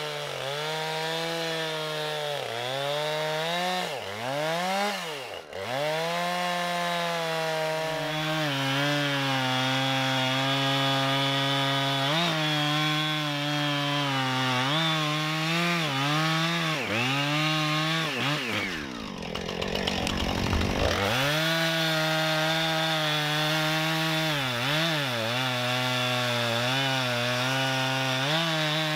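Two-stroke chainsaw running at high revs while cutting through a felled log. Its pitch dips again and again as the chain bogs in the cut, with one deep drop about two-thirds of the way through before it revs back up.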